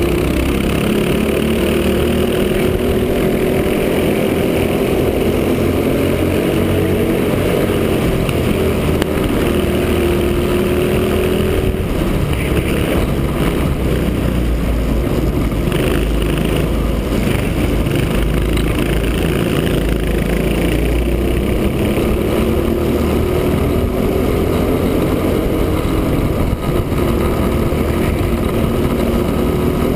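Racing kart's Honda GX160 single-cylinder four-stroke engine running hard on track. Its note climbs slowly in pitch for about ten seconds, drops sharply near the middle, then climbs again toward the end.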